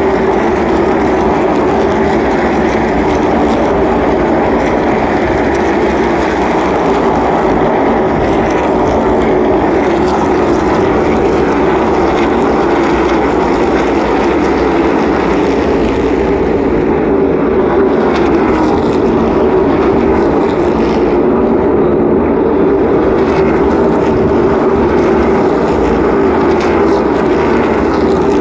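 NASCAR stock cars' V8 engines running at racing speed around the oval, many engines blending into one steady, loud drone.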